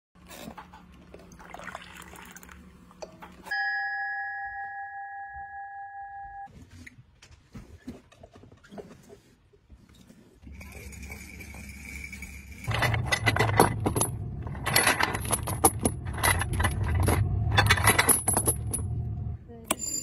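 A string of separate shipboard sounds: coffee pouring from a stainless urn's spigot into a ceramic mug, a steady ringing tone lasting about three seconds, scattered light clicks, then repeated rough scraping strokes of a metal hand tool across bare wooden planks, about one a second, louder than the rest.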